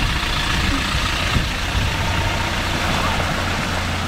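Land Rover Discovery engine running steadily at low speed as the SUV drives through a muddy pool of water.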